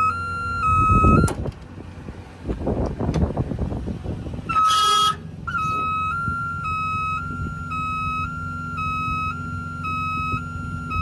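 Bucket truck's hi-lo warning alarm beeping in two alternating tones over the steady idle of the diesel engine. The alarm stops about a second in, there is some clatter, a single louder beep sounds near the middle, and then the hi-lo beeping starts up again.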